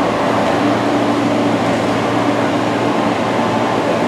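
Steady running hum and rumble of an electric train, with a constant mid-pitched tone over it.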